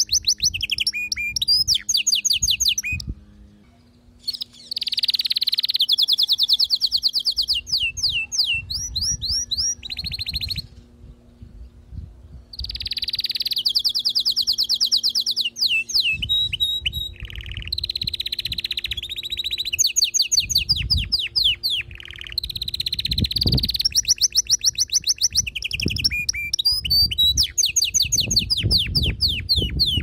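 Domestic canary singing: long phrases of fast rolling trills and chirps, breaking off twice for a second or two before starting again.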